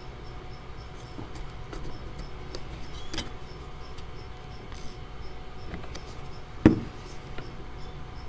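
Strips of watercolor paper being handled and woven: faint scattered rustles and light ticks over a low steady hum, with one sharper knock late on.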